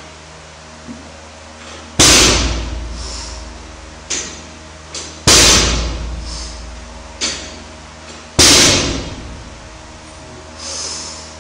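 Loaded barbell with bumper plates hitting the floor three times, about three seconds apart, as each Pendlay row rep is set back down. Each landing is a heavy thud with a ringing tail that fades over a second or more, and there are lighter knocks between the reps.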